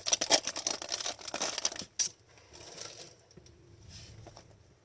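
Crinkling and rustling of plastic trading-card packaging and cards being handled, dense for about two seconds, then dropping to faint, scattered handling sounds.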